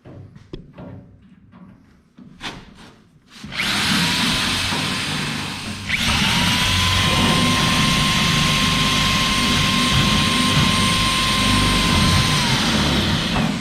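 A few seconds of clicks and knocks from handling, then a handheld power tool runs at full speed. It breaks off briefly about six seconds in, starts again with a steady whine, and winds down near the end.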